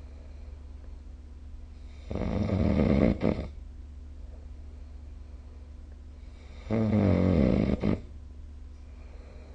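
A sleeping person snoring: two long snores, each lasting over a second, about four and a half seconds apart, over a steady low hum.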